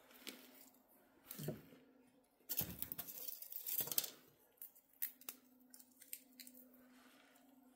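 Dry firewood and kindling being handled and shifted while a wood stove is loaded: a light knock and rustle about a second and a half in, then a louder stretch of rustling and scraping around the middle, followed by a few small clicks.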